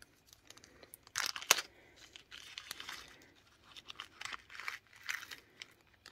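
Small clear plastic zip-top bag crinkling as it is pulled open and handled, in irregular rustles with a sharp crackle about a second and a half in.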